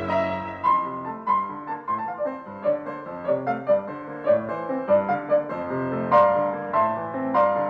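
Background music: a piano playing a melody of separately struck notes, a couple to three a second.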